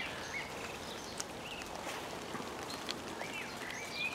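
Birds chirping in short whistled notes, scattered through and coming more often near the end, over a steady background hiss.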